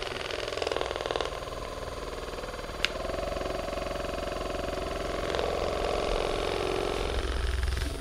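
Percussive massage gun running, its head hammering rapidly into the muscles of the back and buttocks with a steady buzz. The buzz shifts in pitch a couple of times as the pressure changes, and there is a single sharp click about three seconds in.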